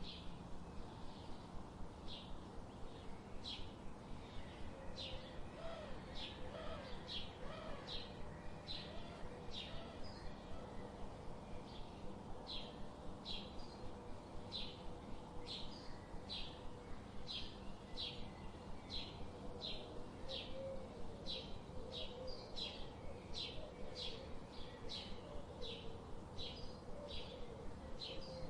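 Birds chirping in a steady run of short, high chirps, roughly one to two a second, with a fainter, lower warbling call now and then underneath.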